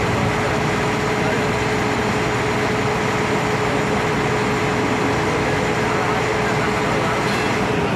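River boat's engine running steadily, heard on board, a constant hum over a wash of engine and water noise.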